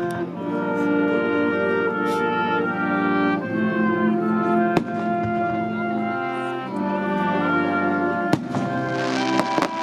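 Military brass band playing sustained chords, with a few sharp firework bangs over it. Near the end a burst of crackling fireworks comes in over the band.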